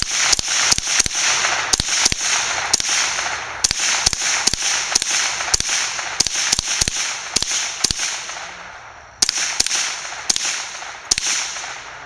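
SIG .22 semi-automatic rifle emptying its magazine: a long string of rapid single shots, two to four a second, then a pause of about a second before a last handful of shots.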